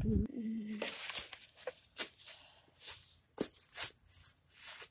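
Dry fallen leaves rustling and crunching in short, irregular bursts, cutting off suddenly at the end.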